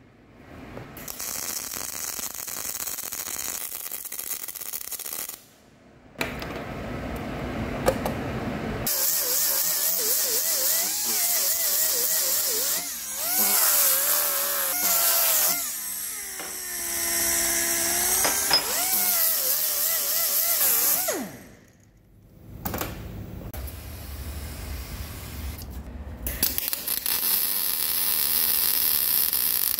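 Power-tool and machining sounds in several short cuts, with brief drops between them. In the middle stretch a tool runs with a pitch that wavers up and down.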